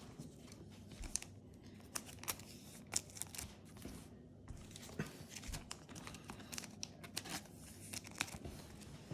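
Yu-Gi-Oh trading cards and foil booster wrappers being handled: soft scattered rustling and crinkling with light taps.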